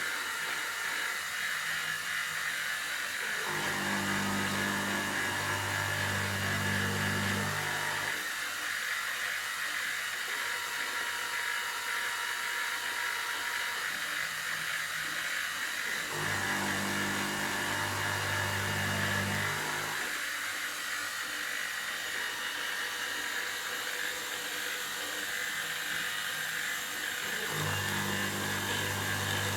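Optimum BF16 mill running under CNC, its spindle turning steadily while it roughs out aluminium. A lower hum comes in three times, about every twelve seconds, for three or four seconds each time.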